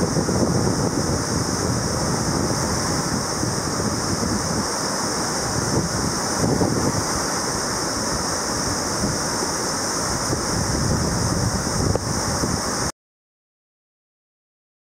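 Whitewater river rapids rushing steadily, with wind buffeting the microphone; the sound cuts off to silence near the end.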